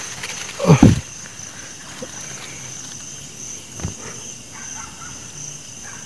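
Steady night chorus of crickets, a continuous high drone. A loud, brief rustling thump about a second in as a hand grabs through the leaves and branches, and a smaller click near four seconds.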